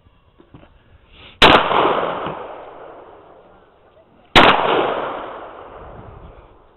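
Two single shots from a Bushmaster AR-15 rifle in .223, about three seconds apart, each followed by a long echo that dies away over about two seconds.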